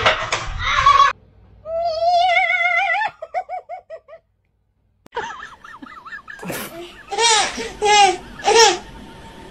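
A baby laughing in short bursts, about one a second over the last few seconds. Before it, a burst of clattering noise, then a wavering high-pitched call that breaks into a string of short falling chirps.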